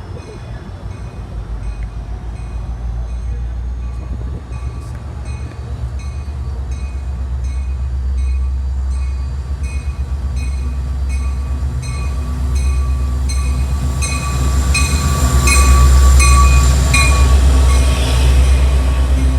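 A train approaching and passing, its deep rumble growing steadily louder and peaking near the end, with a regular high clicking about twice a second over it.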